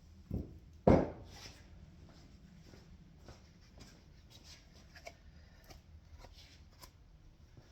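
Two dull knocks in quick succession, the second louder, then faint scattered clicks and rustles of tools and engine parts being handled.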